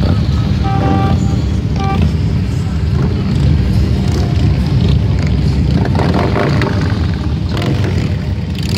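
A procession of Harley-Davidson V-twin touring motorcycles running past one after another at parade pace: a loud, steady low engine sound.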